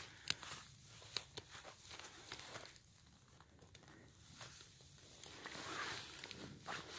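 A hand rustling through dead twigs and forest-floor litter, with scattered light clicks and snaps. Near the end a louder stretch of rustling comes as the mushroom is pulled up out of the soil.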